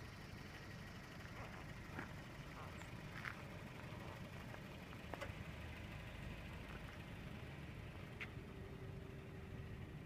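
Car engine idling, a faint steady low rumble heard from inside the car, with a few short faint high sounds over it.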